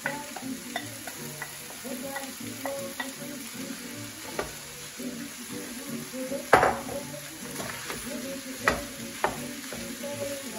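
Pork bits and mixed vegetables sizzling in oil in a stainless steel skillet as leftover rice is added and stirred in with a spoon. Scattered light clicks of the spoon run through it, with one sharp knock about six and a half seconds in and two smaller ones near the end.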